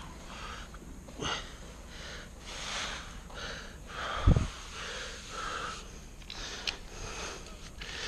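Hands rubbing and pressing glue-down commercial carpet as it is tucked in along a seam, with close breathing. One dull thump about four seconds in is the loudest sound.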